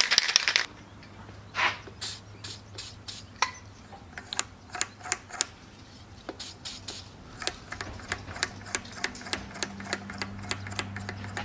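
Aerosol can of dry Teflon lube spraying, the hiss cutting off within the first second. Then scattered light clicks and ticks, sparse at first and several a second later on, over a low steady hum.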